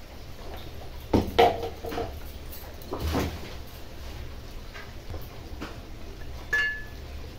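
A few sharp knocks and clinks of kitchen utensils and containers being handled, the loudest pair about a second in, with a short metallic ring near the end.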